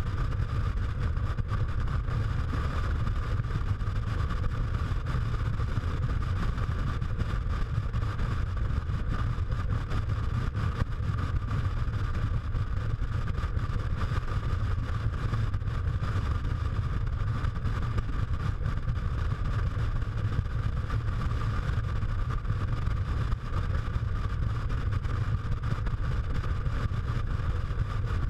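Motorcycle cruising at a steady speed, heard from the pillion seat: a constant low rumble of engine, tyres and wind that does not rise or fall.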